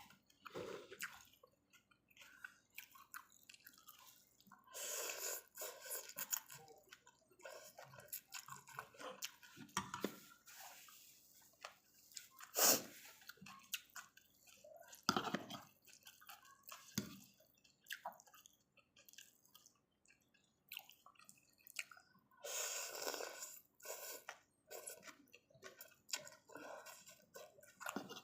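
A person eating pork noodle soup with thick broth: slurping noodles and broth in two longer stretches, around five seconds in and again near twenty-three seconds, between chewing and many short sharp clicks.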